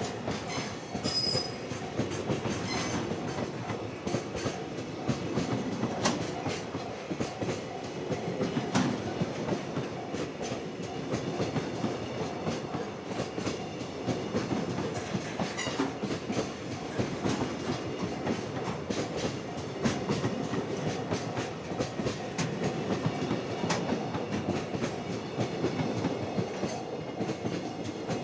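Freight train wagons rolling past, wheels clattering steadily over the rail joints, with a brief high wheel squeal about a second in.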